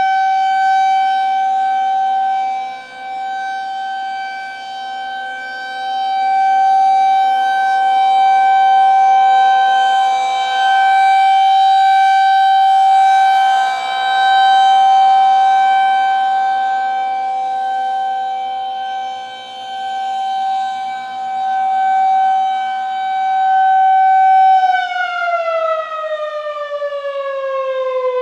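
Federal Signal 2001-130 rotating outdoor warning siren sounding the steady full-alert tone, its loudness swelling and fading as the rotating head sweeps past. Near the end the pitch starts falling steadily as the siren winds down.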